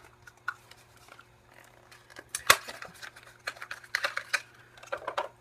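Small skincare product packaging being handled and opened by hand: scattered clicks and rustles, with one sharp click about two and a half seconds in and a quick run of clicks near the end.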